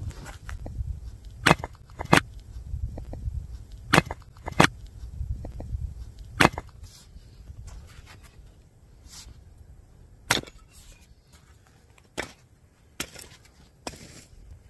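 Firewood being worked by hand: about nine sharp, hard wooden knocks, several coming in pairs about half a second apart, most of them in the first half.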